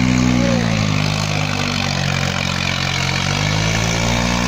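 Swaraj 855 tractor's three-cylinder diesel engine running under load while the tractor holds a wheelie on its rear wheels. The engine speed sags in the first second or two, then climbs again a little past three seconds in.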